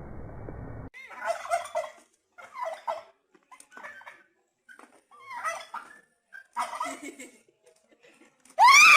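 A turkey gobbling in about five short bursts of rapid warbling notes, after a second of low hiss. Near the end comes a much louder shrill cry with sweeping pitch.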